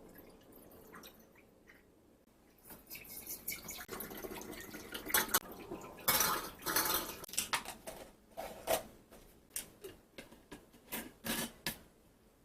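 Dishes and food containers being handled in a kitchen. A rushing noise runs a few seconds in, then there is a run of clinks and knocks in the second half.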